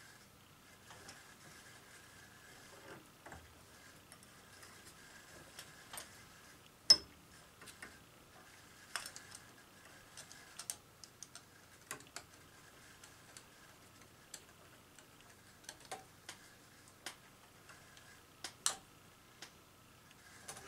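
Scattered small clicks and taps from hand work on a light fixture being mounted to a ceiling box, with one sharper click about seven seconds in, over a faint steady high hum.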